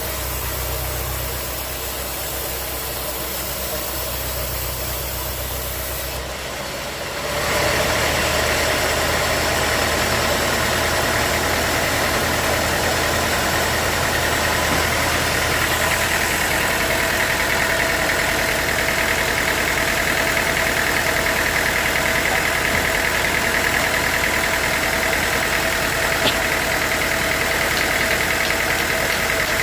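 Sawmill machinery running steadily with an engine-like hum. About seven seconds in it turns louder, with a steady higher whine added.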